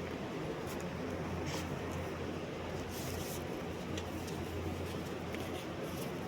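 Steady low hum under a constant hiss, with a few faint scattered ticks.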